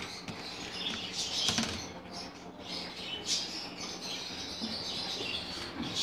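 Faint chirps of caged birds over the rustle and splash of soaked seeds and vinegar water being handled in a bowl.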